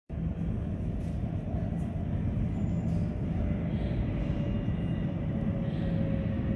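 Subway station ambience on an empty underground platform: a steady low rumble of trains and machinery. Faint, steady high whines come in about halfway through.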